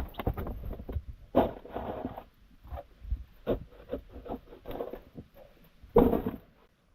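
Irregular scraping and rustling, with a sharper knock about one and a half seconds in and another near the end, then an abrupt drop-out.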